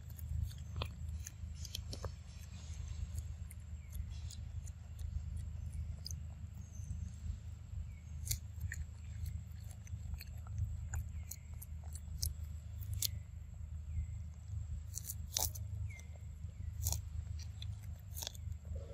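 Macaque biting kernels off a corn cob and chewing, with sharp wet clicks and crunches scattered throughout over a steady low rumble.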